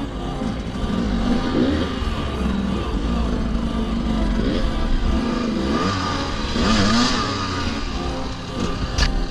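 Enduro motorcycle engine revving up and down again and again, its pitch rising and falling every second or so, with a sharp knock near the end.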